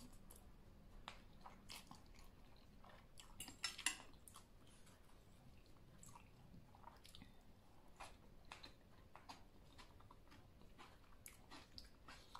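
Quiet close-up chewing of soft, chewy ramen noodles in a spicy Thai salad, with small wet mouth clicks and smacks scattered throughout and a louder cluster of them about three and a half seconds in.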